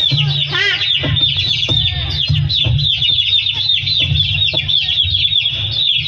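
Hens clucking with many small birds chirping rapidly around them, a farmyard sound over a steady low hum.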